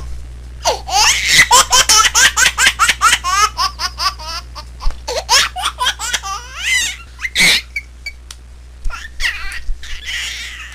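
A baby laughing in quick runs of high-pitched giggles, several a second, with one louder squeal about seven seconds in, then softer giggles near the end. A steady low hum runs underneath.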